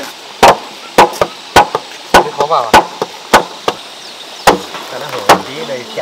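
A hammer striking wooden beams in a steady run of sharp blows, about two a second, with a short pause a little past the middle.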